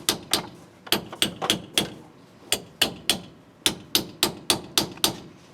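A hammer tapping lightly and repeatedly on a metal part to seat it. About sixteen sharp, ringing taps come in short runs of three to five, with brief pauses between.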